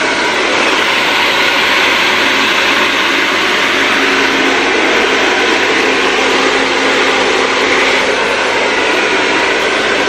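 Bronson 2000-watt hair dryer running steadily on its hot setting: a loud, even rush of air through the concentrator nozzle over a faint low motor hum, with strong airflow.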